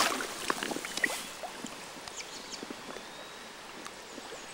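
Light splashes and drips of shallow river water as a trout is released by hand, mostly in the first second, then a faint steady hiss of the river.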